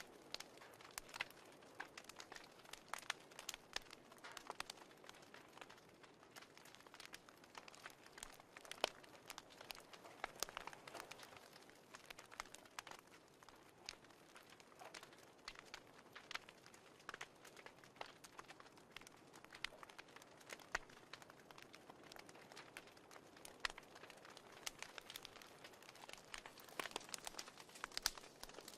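Wood fire crackling in a fireplace: faint, irregular pops and snaps over a soft hiss.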